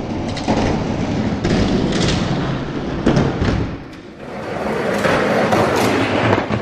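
Hot Wheels die-cast monster trucks rolling fast down an orange plastic track: a continuous rattling rumble with sharp clacks and knocks. The rumble dips about four seconds in, picks up again and cuts off sharply at the end.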